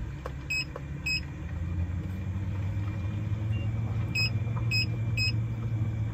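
Fantastic Fan 7350 roof vent fan running with a low hum that grows louder about two seconds in as it speeds up, now working on a newly replaced circuit board. Five short electronic beeps from its controls, two near the start and three close together near the end.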